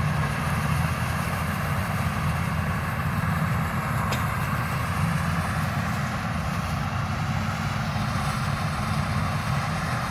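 Bimo combine harvester running steadily under a constant engine and machinery drone, with a brief high tick about four seconds in.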